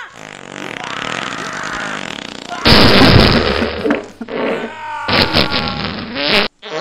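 Fart sound effects edited into the soundtrack, in pasted-in clips: the loudest comes about three seconds in, another near the end, and it cuts off abruptly.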